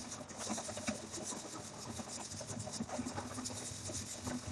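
Milled malt grist rattling and sliding inside a lidded stack of brass test sieves as it is shaken back and forth: a continuous dry, scratchy rattle.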